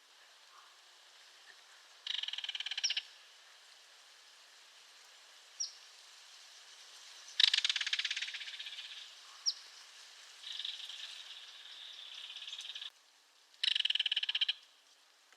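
Belted kingfisher giving its dry, rapid rattle call in four bursts: a short one about two seconds in, a longer one about halfway through that fades off into a weaker stretch, and a last short burst near the end. Two brief high chirps fall between the rattles.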